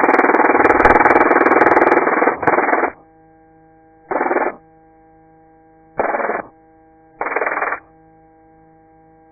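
Helicopter headset intercom: a steady electrical hum, broken by bursts of tinny, radio-filtered rotor and wind noise as the microphones open. The first burst is long, about three seconds, and three short ones follow.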